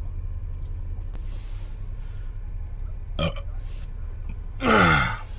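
A man's loud burp after a drink of carbonated soda, about half a second long, falling in pitch, near the end.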